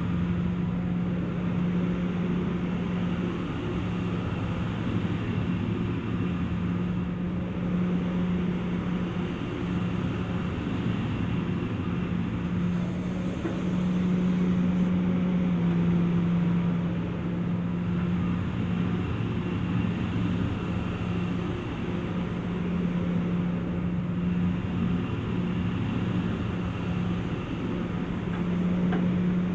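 Hitachi EX355 excavator's diesel engine running steadily. It gets a little louder and drops slightly in pitch for a few seconds around the middle, as if under more load.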